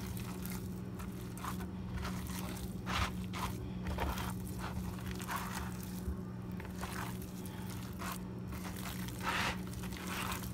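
Hands mixing and kneading raw pork sausage meat in a plastic bowl: a run of irregular short squelches, over a steady low hum.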